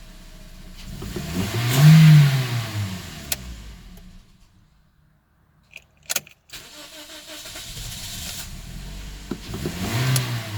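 Car engine revving up and falling back, twice, with a short break between. Sharp clicks come just before the second rev.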